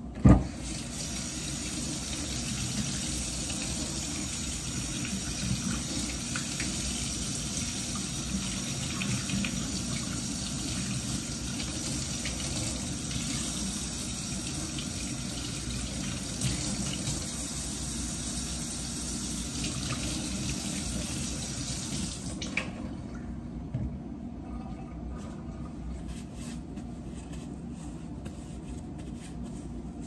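A sharp knock, then a kitchen tap running steadily for about twenty seconds before it is shut off suddenly; a few light knocks follow.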